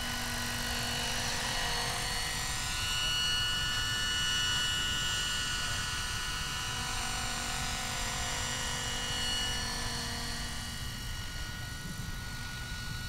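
Minicopter Heli-Baby electric RC model helicopter, powered by a Plettenberg electric motor, flying past in steady flight with a high whine made of several steady tones. It is loudest a few seconds in and eases slightly near the end.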